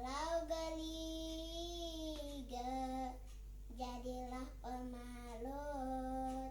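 A child singing a slow melody alone, holding long notes and gliding between them with short breaks for breath. A steady low electrical hum runs underneath.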